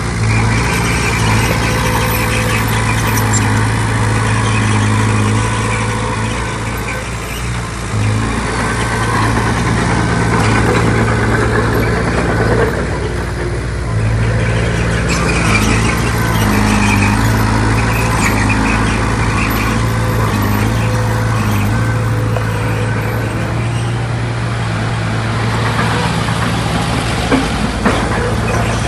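Heavy diesel engine of earthmoving machinery running steadily, its load easing and picking up again a couple of times.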